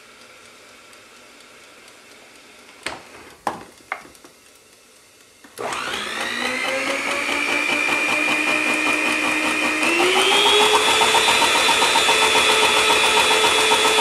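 A few sharp clicks at the controls of a George Foreman Lean Mean Spin Fryer, then its motor starts spinning the fry basket to fling off the oil: a loud whine that climbs in pitch as it spins up and steps higher again about ten seconds in.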